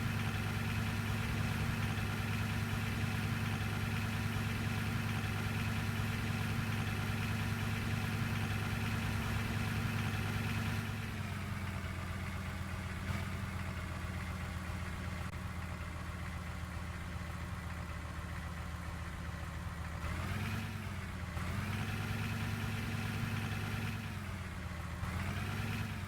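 Bus engine idling steadily, settling to a lower, quieter idle about eleven seconds in, then briefly revved twice near the end.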